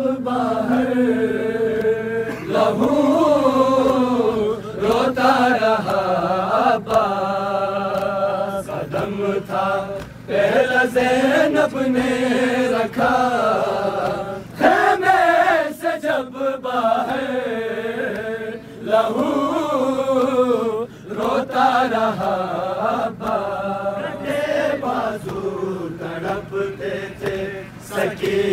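Voices chanting an Urdu noha, a Muharram mourning lament, in long drawn-out sung phrases with short breaks between them.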